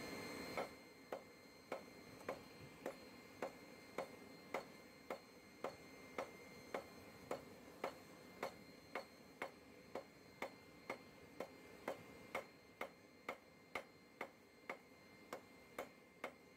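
Hand hammer blows on a steel bar over an anvil, a steady rhythm of a little under two sharp strikes a second, starting about half a second in. The smith is drawing out and tapering the end of the bar.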